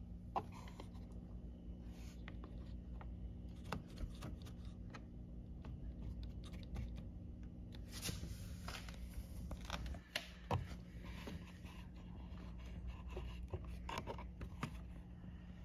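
Faint handling noise: scattered light scrapes, rubs and clicks over a steady low hum, with sharper clicks just after the start and about ten seconds in.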